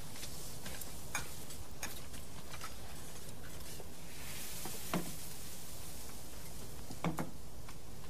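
Faint scattered clicks and a few soft knocks over a steady low hiss: dishes and chopsticks on a wooden table, heard from a film soundtrack playing on a TV in the room. The clearest knocks come about five and seven seconds in.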